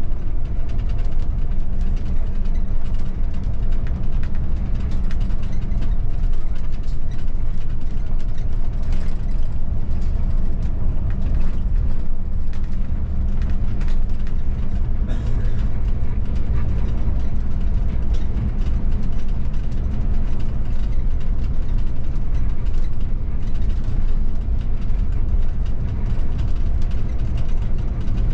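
Bus driving, heard from the driver's cab: a steady low engine and road rumble with a faint hum, and many small clicks from the cab fittings throughout.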